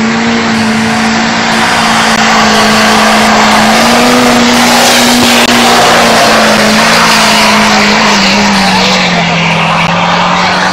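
Duramax V8 turbodiesel pickup held at high revs during a burnout, its rear tyres spinning and squealing on the asphalt under a steady engine note. The engine pitch drops a little near the end as the truck pulls away.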